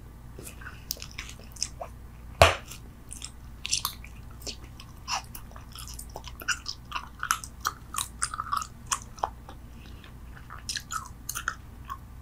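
Bubble gum chewed close to the microphone: irregular short wet clicks and smacks of the mouth, with one louder snap about two and a half seconds in.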